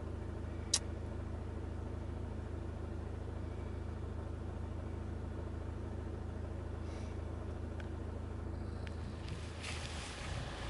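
Car engine idling steadily, heard from inside the car, with a single sharp click about a second in. Near the end the hum gives way to uneven low rumbling.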